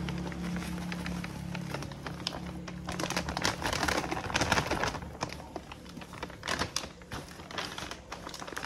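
Dry granular bait being handled: rapid, irregular clicks and crackles. A low steady hum fades out over the first three seconds.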